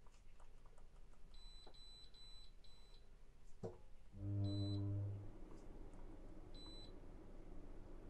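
A Dometic ceiling-mounted air conditioner gives short high beeps as buttons on its remote are pressed to lower the set temperature: five quick beeps, then two more spaced out. About four seconds in, a low hum lasts about a second and is the loudest sound, followed by a faint steady rush.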